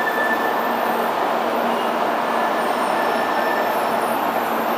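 Shinkansen bullet train rolling along the platform: a steady hiss and rumble from its wheels and running gear, with a faint high whine above it.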